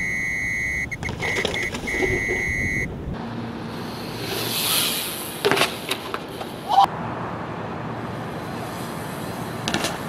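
A steady, high-pitched electronic beep, broken briefly about a second in, stops about three seconds in. A rushing noise follows, then a few sharp knocks a little over a second apart.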